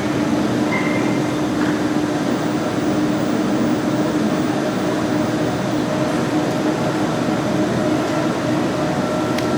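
Airport ambience: a steady mechanical rumble with a constant low hum, with a brief high beep about a second in and a small click near the end.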